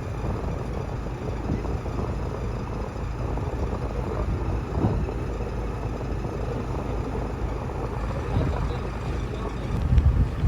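Cruise boat's engine running steadily on the river, with wind buffeting the microphone in louder low gusts near the end.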